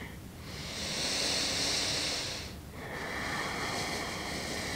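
A person breathing deeply close to a clip-on microphone: a long, hissy breath lasting about two seconds, then a second, slower and lower-pitched breath starting about three seconds in.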